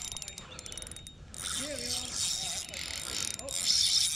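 Fishing reel clicking in a fast, even ratchet for about a second near the start, followed by louder noise with a few short pitched sounds.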